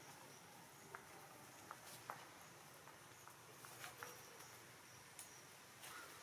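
Near silence: faint outdoor background with a few soft, scattered clicks and ticks.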